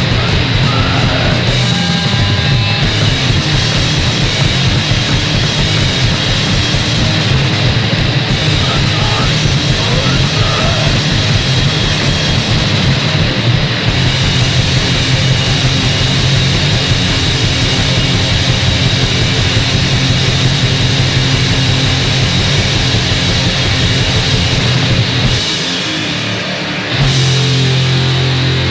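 Punk band's demo recording: a loud, dense rock song with guitar. The low end thins out briefly near the end before the full band sound returns.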